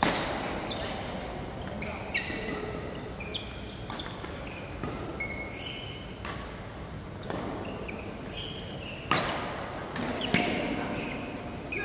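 Badminton rally: sharp racket strikes on the shuttlecock, the loudest at the start and twice near the end, with shoes squeaking on the court mat between shots.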